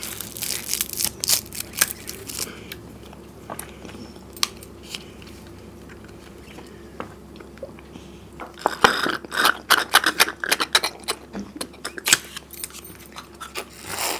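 Small paper mango-drink cartons crinkling and clicking as straws are pushed through their foil holes. After a quieter stretch, there is noisy slurping and crackling through the straws as the cartons are sucked empty and squeezed, loudest for a few seconds past the middle.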